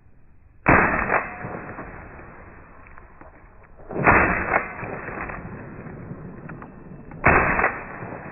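Shotgun fired three times, about three seconds apart, each shot a sharp crack with a tail that dies away over about a second.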